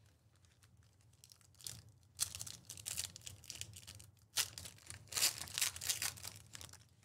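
Trading card pack wrappers torn open and crinkled by hand: a run of crackling about two seconds in, and a longer one from about four and a half seconds.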